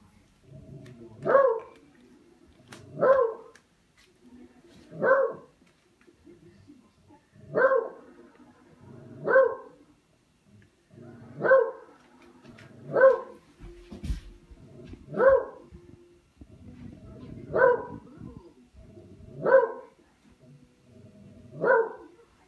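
A dog barking at a katydid it is playing with: single short barks about every two seconds, eleven in all.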